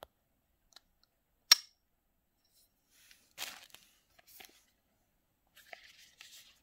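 A single sharp click about a second and a half in, then brief crinkling of tissue paper as small cosmetic packages are handled and set down, with a few faint rustles and ticks near the end.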